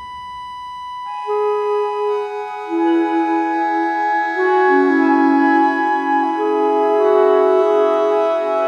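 Ambient music of sustained organ chords with clarinet: a single high note held alone at first, then more long notes layering in from about a second in into a dense, slowly shifting chord.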